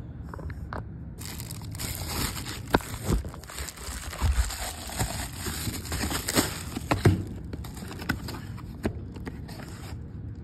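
A plastic poly shipping mailer being torn open and crinkled by hand, starting about a second in, with many sharp rips and crackles as a boxed pump is pulled out.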